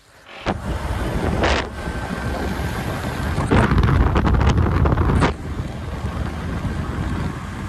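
Wind buffeting the microphone over a low rumble, louder for a couple of seconds past the middle.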